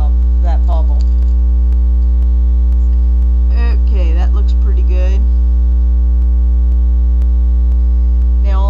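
Loud, steady electrical mains hum, a low buzz with a ladder of overtones, with faint, indistinct voice-like sounds about midway.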